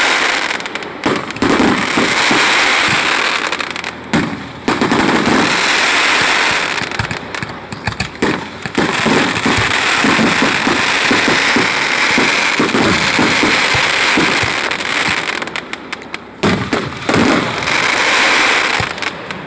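Fireworks display: a dense, continuous barrage of bangs and crackling from many fireworks fired in quick succession, with a few brief lulls.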